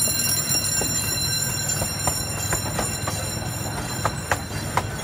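Zoo Line miniature train heard from inside its open passenger car while rolling along the track: a steady low rumble of the running train with a few sharp clacks from the wheels and car, two of the loudest near the end.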